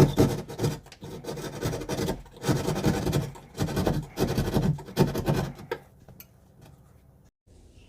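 A hand tool scraping back and forth through drywall in repeated rough strokes, enlarging the cut-out so the electrical outlet box will fit. The strokes stop about six seconds in.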